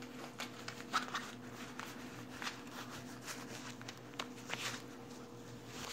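Faint rustling and a few light clicks and knocks, as of a person moving about in winter clothing, over a low steady hum.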